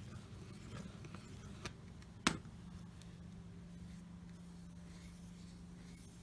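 Quiet, faint handling sounds of painting, with a few small ticks and one sharp click a little over two seconds in, over a steady low hum.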